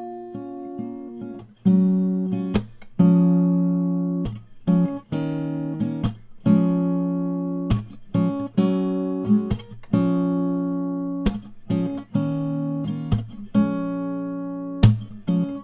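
Background music: an acoustic guitar strumming chords about once a second, each ringing out and fading before the next.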